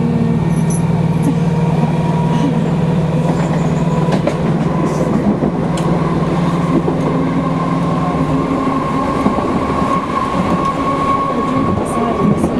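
Interior running noise of a Class 313 electric multiple unit travelling at speed: a steady rumble of wheels on rail with a few clicks, a low hum that fades about eight seconds in, and a steady higher whine.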